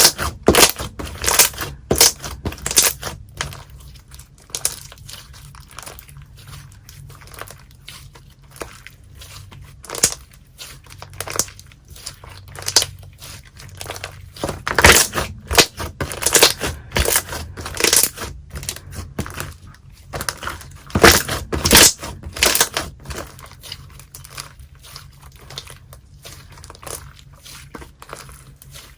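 Slime being squeezed, pressed and poked by hand, giving irregular sharp pops and crackles that come in clusters with quieter stretches between.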